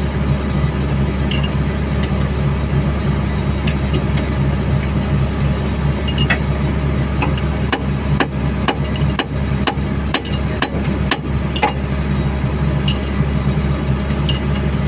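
An engine idling steadily, with scattered sharp metal taps and clinks of tools on a tracked machine's steel undercarriage during a track-roller change, coming in a quick run for a few seconds past the middle.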